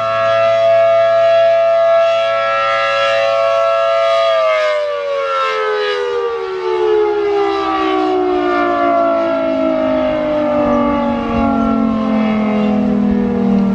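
ACA Allertor 125 rotating dual-tone (10/12-port) siren sounding a steady two-note chord. About four seconds in, its pitch begins to fall steadily as the rotor winds down at the end of the signal. Strong wind gusts buffet the microphone throughout.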